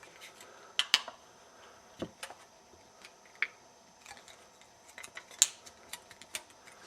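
Thin aluminium sheet cut from a beer can being bent and folded by hand, giving scattered sharp crinkling clicks, the loudest about a second in and near five and a half seconds.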